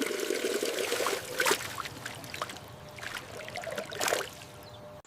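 Real water running down a plastic LEGO water slide, trickling and splashing into a pool. There are louder splashes about a second and a half in and again near the end.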